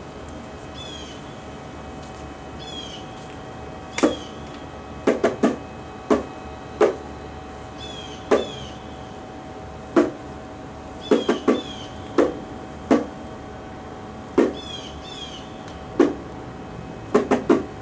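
A series of sharp slaps, one to three at a time in uneven clusters, starting about four seconds in. Behind them a bird repeats a short chirping call every few seconds over a steady hum.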